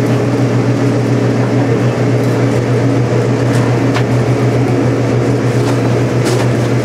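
A steady low machine hum, running evenly with a few faint clicks about four seconds in and near the end.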